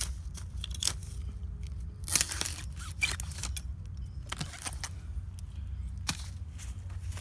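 Dry bamboo leaf litter crunching and crackling in irregular snaps, with a louder burst of cracking about two seconds in.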